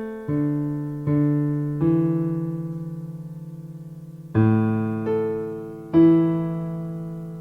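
Piano playing slow chords, each struck and left to ring and fade: three in the first two seconds, one held long, then three more from about four seconds in.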